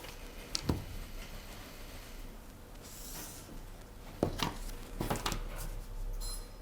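Quiet handling of paper pattern pieces while tracing with a marker: a few soft taps and clicks, and a brief papery rustle.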